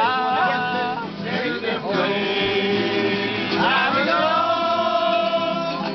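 Men singing along to two strummed acoustic guitars, with long held notes in the second half.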